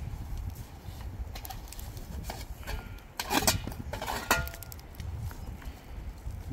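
Knocks and scrapes of a metal shovel on stony ground as burning grass is beaten out, with two louder strikes a little after halfway, the second ringing briefly, over a low rumble.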